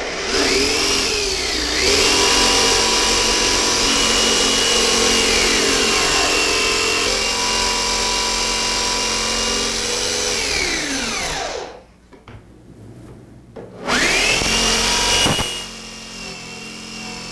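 Skil corded jigsaw cutting through a wooden panel, its blade driven from a drilled starter hole along a marked opening. The motor starts at once, runs steadily under load, then winds down about eleven seconds in; after a short pause with a few clicks it runs again briefly for about a second and a half and stops.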